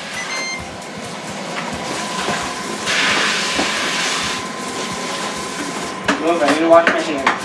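A short electronic beep from the Ninja air fryer's control panel, then the steady hiss of water running from a kitchen tap into the sink, loudest for about a second and a half midway.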